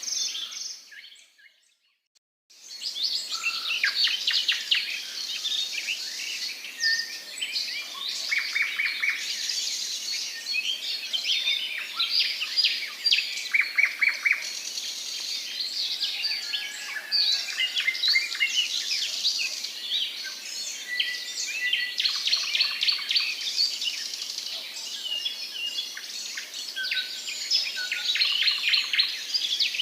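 A chorus of songbirds singing and chirping, many overlapping calls at once, some birds giving fast trills of evenly repeated notes. The sound drops out almost completely for about two seconds just after the start, then the chorus resumes.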